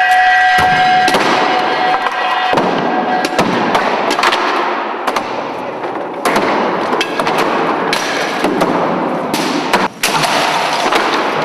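Upright piano being smashed with heavy tools: a rapid, continuous run of cracking wooden impacts and splintering. A single pitched tone rings out at the start and stops about three seconds in.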